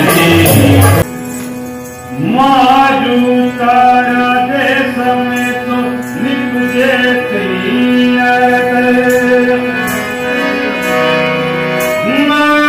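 Rajasthani folk dance music: a singer holds a wavering melody over the sustained tones of a harmonium. A louder drum-led passage breaks off about a second in and returns near the end.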